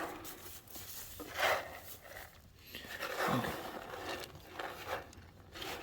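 Goats moving about a pen, with scuffs and scrapes and a short, low, falling grunt-like call about three seconds in.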